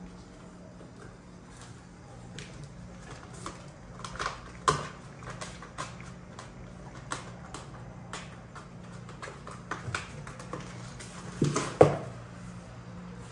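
A cat scrabbling about inside a small cardboard box: scattered scratches, rustles and clicks of claws on cardboard, with two louder knocks, about five seconds in and near the end. A steady low hum runs underneath.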